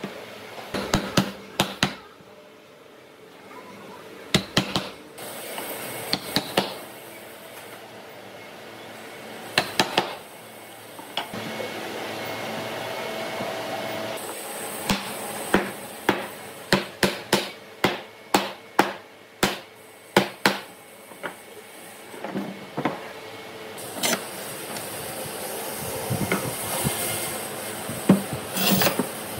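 Hammer blows on wood as slats are knocked into the slotted rails of a wooden slat panel: sharp knocks in short runs separated by pauses, with one long run of about ten blows, roughly two a second, in the middle.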